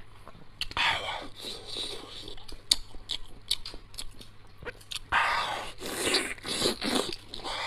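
Close-miked eating of saucy braised pork ribs: biting and chewing with many sharp little mouth clicks and smacks. There are louder noisy stretches about a second in and again from about five seconds on.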